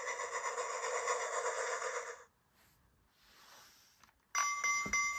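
Electronic sound effect from a VTech Toot-Toot Drivers toy train's speaker: a rhythmic, noisy chugging for about two seconds, then a pause. Near the end the roof button is pressed with a click and a steady electronic tone starts.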